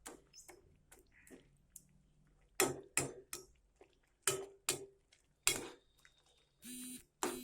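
A cooking spoon knocking and scraping against a pan as upma is stirred, in a string of separate short strokes.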